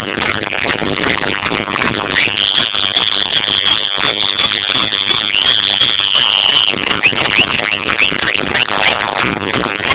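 Fireworks show over a loud crowd: a dense wash of noise, with a high whistle held for about four seconds from around two seconds in, then a quick string of short falling whistles near the end.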